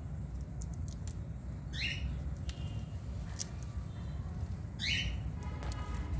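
Rose-ringed parakeet giving two short squawks about three seconds apart, with light clicks and a flutter of its wings as it hops on the rim of a water cup.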